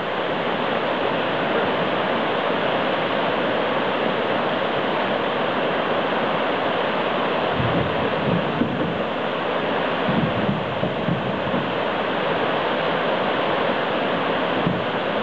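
River rapids rushing steadily over a shallow cobble riffle, with a few dull low thumps now and then.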